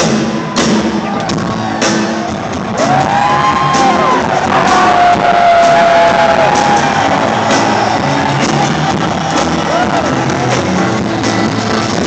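Live rock band playing an instrumental break while a vacuum cleaner, played as an instrument, puts out wavering, sliding whistle-like tones over it from about three seconds in, with a short slide again near ten seconds.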